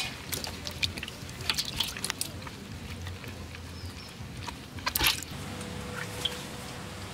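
Wet handling sounds of hands rubbing and washing skinned rat carcasses in a basin of water, with scattered light clicks and a louder knock about five seconds in.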